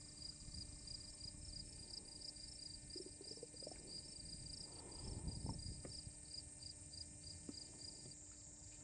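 Insects chirping faintly in a rapid, steady pulse, over a low rumble that swells briefly about five seconds in.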